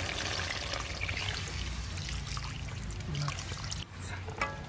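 Water pouring in a steady stream from a steel bowl into a hot iron kadai of simmering goat-skin curry, stopping about four seconds in.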